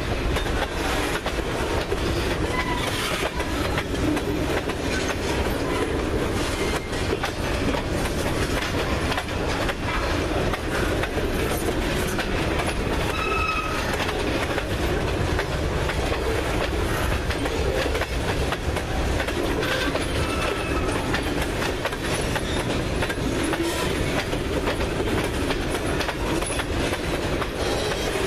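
Freight cars rolling past close by: steady rumble of steel wheels on the rail with clickety-clack over the joints. A couple of brief high wheel squeals break in, about thirteen and twenty seconds in.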